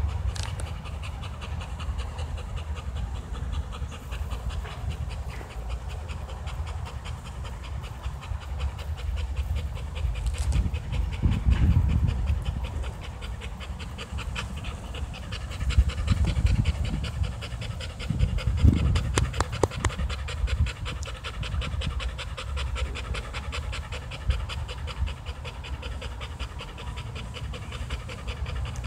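A pit bull-type dog panting fast and rhythmically with its mouth wide open. A low rumble on the microphone swells a few times underneath.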